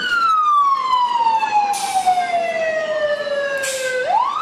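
Emergency vehicle siren on a slow wail: the pitch falls steadily for about four seconds, then rises sharply again near the end. Two short hisses come through it, about two and four seconds in.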